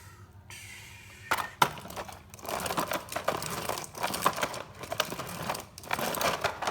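Dense, irregular clicking, rattling and crinkling of handled plastic, starting about a second and a half in.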